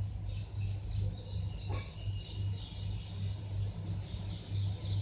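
A low hum that swells and fades about twice a second, with faint bird chirps above it.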